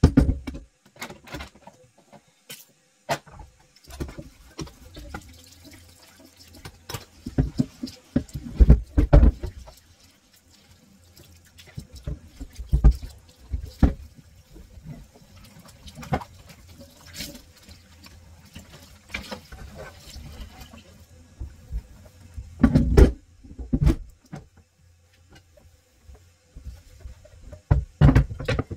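Kitchen tap water running onto a wooden chopping board in a stainless steel sink while it is washed, with repeated knocks and thuds as the board bumps against the sink and tap.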